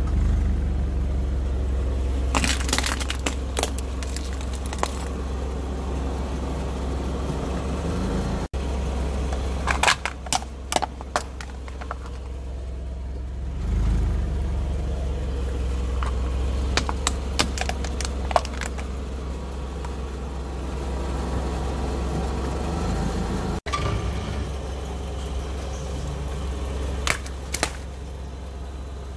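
A car's engine running with a steady low rumble while its tyre rolls over and crushes plastic toys, giving several clusters of sharp cracks and snaps as the plastic breaks.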